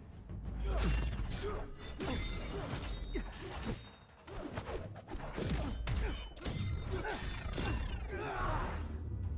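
Movie fight sound effects: a wooden fighting staff swishing through the air and striking in a rapid series of sharp blows and thuds, with a crash of something splintering near the end.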